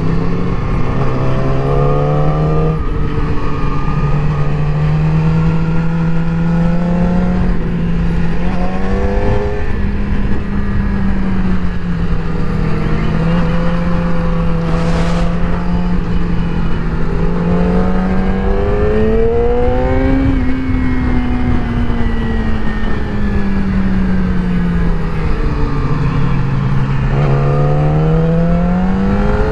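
Motorcycle engine running hard, its pitch climbing and dropping repeatedly as the throttle is opened and closed and gears are changed through the bends, highest about twenty seconds in. A steady rush of wind noise runs underneath.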